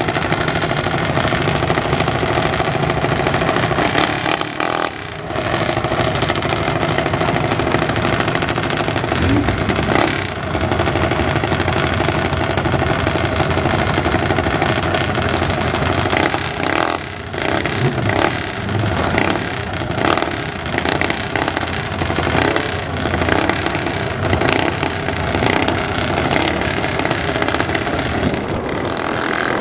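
Small mini bike engines running steadily at the drag strip start line, with a few brief revs and dips in the engine note.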